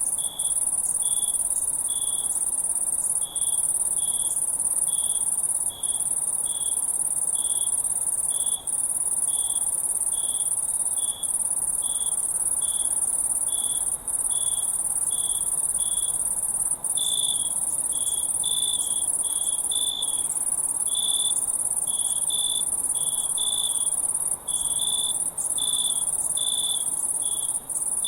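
Crickets chirping: a continuous high-pitched trill with a lower chirp repeating about twice a second over it. From about halfway the chirps come unevenly, some of them doubled.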